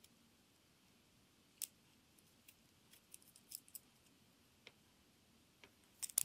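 Light, scattered clicks of small steel hardware being handled as an M5 lock nut is turned onto a screw through the gantry plate by hand. There is a single click about a second and a half in, a quick run of them around the middle, and the sharpest clicks just before the end.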